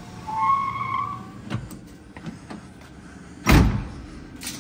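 Car starter motor whining briefly, for under a second, on a test turn of the key. About three and a half seconds in comes a loud clunk.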